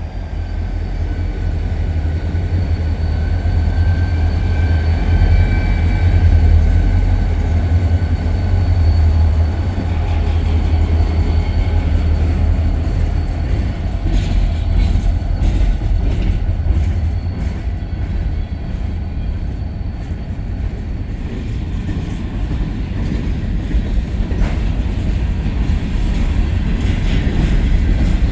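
A Wheeling & Lake Erie freight train passing: a deep diesel locomotive rumble, loudest in the first dozen seconds, then the freight cars rolling by with repeated clicks of the wheels over the rail joints.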